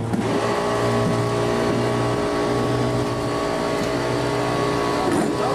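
An engine running steadily, an even hum made of several constant tones.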